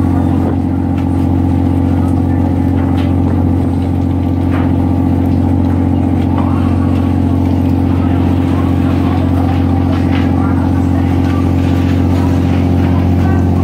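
Fishing boat's engine and deck machinery droning steadily with a constant low hum, with a few short knocks from gear being handled on deck.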